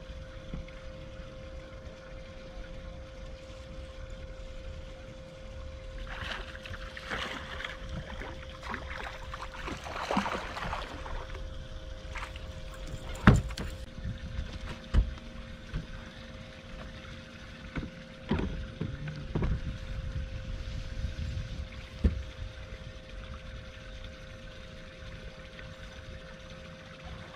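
Steady whine of an electric trolling motor, with splashing as a striped bass is brought to the boat, then one sharp knock and several thumps on the boat deck as the landed fish flops.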